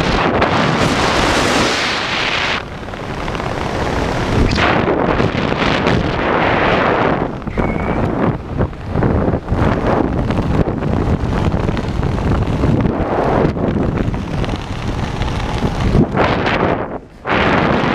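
Airflow rushing over a helmet camera's microphone under an open parachute: loud, gusting wind noise that swells and dips, with a brief sharp drop about a second before the end.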